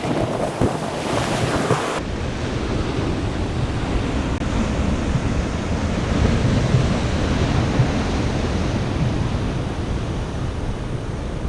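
Ocean surf washing onto the shore, with gusty wind buffeting the microphone in a steady low rumble. About two seconds in, the bright upper hiss drops away abruptly.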